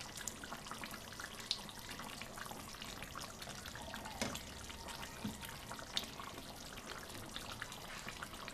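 Duck and potato curry simmering in its gravy in a pan, bubbling and popping faintly, with a few brief ticks.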